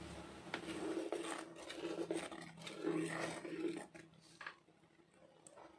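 Electric kitchen grinder running with a steady motor hum and a swelling, rough grinding noise, dying down about four seconds in.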